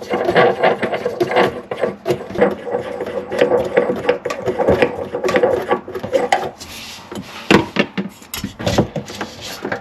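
Parts and tools being handled during a faucet installation: a dense run of clicks, knocks and scraping for about six seconds, then a few separate knocks.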